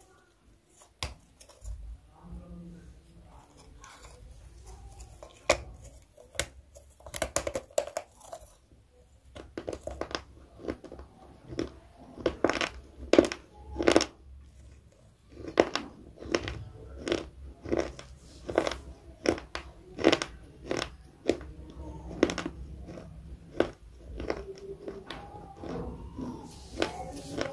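Close-miked chewing of crisp food, with wet crunches and mouth clicks. They come sparsely at first, then from about nine seconds in as a steady run of crisp crunches, one or two a second.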